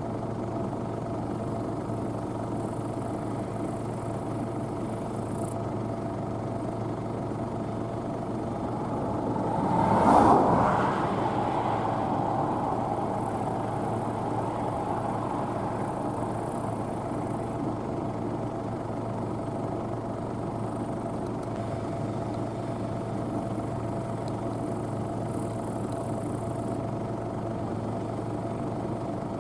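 Claas Medion 310 combine harvester running steadily at work. It grows louder as it passes close about ten seconds in, then fades back to a steady level.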